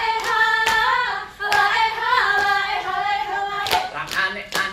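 Saman dancers singing an Acehnese chant, with a few sharp hand claps in the dance's rhythm.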